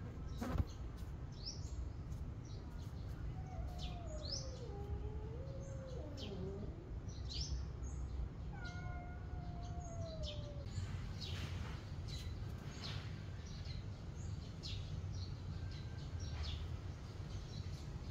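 A cat meows twice, two long wavering meows a few seconds apart, over small birds chirping in short quick high notes and a steady low rumble. A single sharp knock sounds just after the start.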